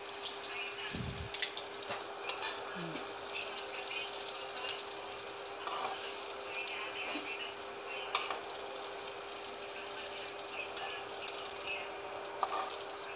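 Onion rings sizzling gently in shallow hot oil in a non-stick wok, with scattered clicks of metal tongs against the pan and a steady faint hum underneath.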